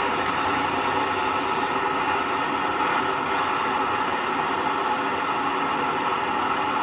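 Handheld gas torch (not oxy-acetylene) burning with a steady hiss, heating seized exhaust manifold stud nuts to free them.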